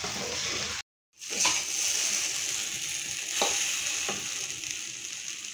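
Chowmein noodles sizzling in a large metal wok while a flat metal spatula stirs and tosses them, with a few short scrapes of the spatula against the pan. The sound drops out for a moment about a second in.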